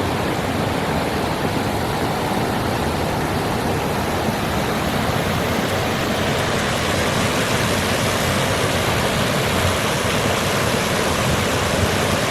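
Flowing water rushing steadily, a constant hiss and rumble with no breaks.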